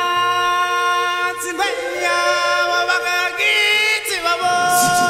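Background music: a voice singing long held notes, shifting pitch a few times.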